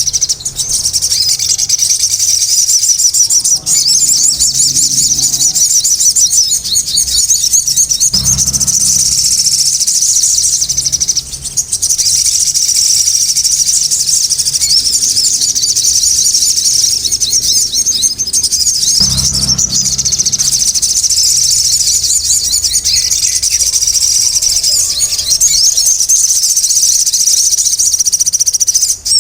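Sogon songbirds calling noisily: a dense, continuous stream of high-pitched rapid chirps and trills.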